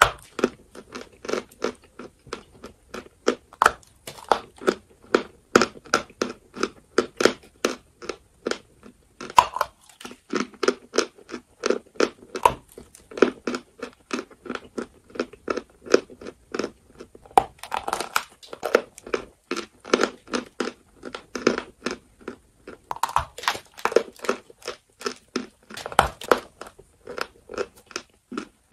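A lump of white chalk being chewed close to a clip-on microphone: steady dry crunching at about two to three chews a second, with a few louder crunches along the way.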